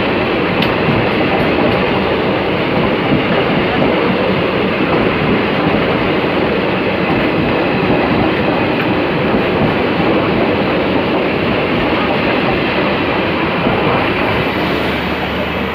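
Train running on rails: a steady, loud rumble and rattle of wheels and coaches.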